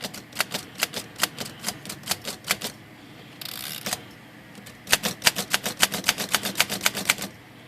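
Underwood four-bank manual typewriter being typed on: keys struck in two runs of sharp clicks, the second faster, with a brief rasping slide in between. The typing is a test of a typebar that had been jamming in its guide, now freed.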